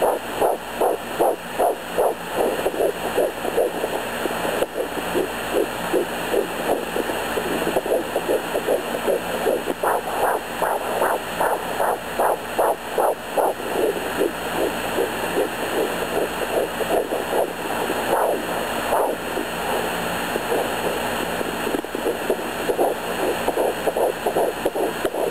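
Fetal heartbeat at 11 weeks picked up by a Sonoline B handheld fetal doppler and played through its speaker. It is a fast, whooshing pulse at close to three beats a second over steady hiss, growing stronger and weaker. The uploader believes she hears two separate heartbeats, about 162 and 150 beats per minute, and wonders whether they could be twins.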